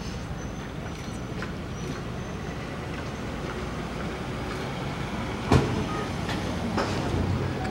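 Steady low outdoor background rumble, with a single sharp knock a little past halfway through and a low hum rising near the end.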